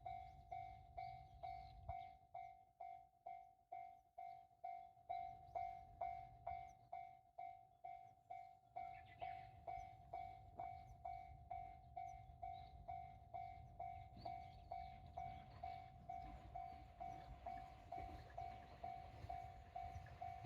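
Japanese level-crossing warning bell ringing its steady "kan-kan" alarm, one bright tone repeating evenly about twice a second.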